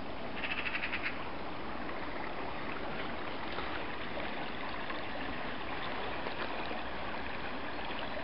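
Small stream running over stones, a steady rushing. About half a second in comes a brief burst of fast, high-pitched ticks lasting under a second.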